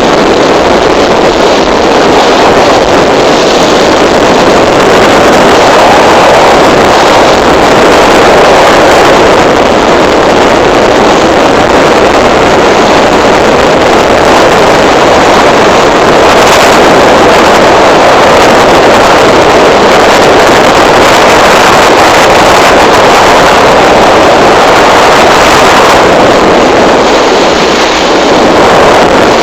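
Motorboat under way: its engine running and water rushing past the hull, loud and steady, with wind on the microphone.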